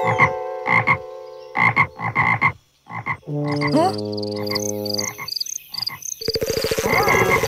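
Cartoon frogs croaking: a quick series of short croaks, then longer held calls, and from about six seconds in a fast rattling trill.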